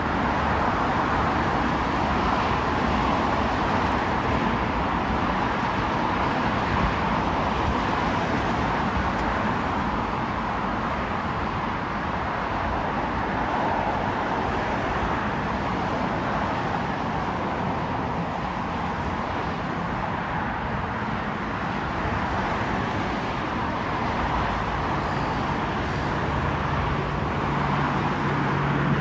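Airliner engines running at a distance, a steady noisy rumble; about 25 seconds in a low steady hum comes in and grows louder.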